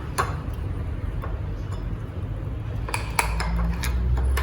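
A utensil clinking and scraping against a mixing bowl as cake batter is stirred, with the clinks coming thicker near the end.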